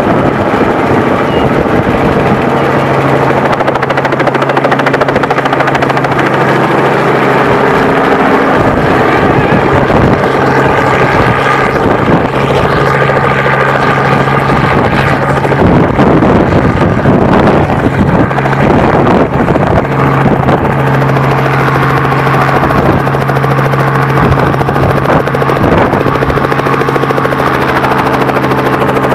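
Robinson R44 helicopter's rotor and piston engine running loudly with a steady hum as it comes down to land. A rougher, rushing stretch in the middle comes as it touches down on grass and its downwash blows across the microphone. It then runs steadily on the ground with the rotor still turning.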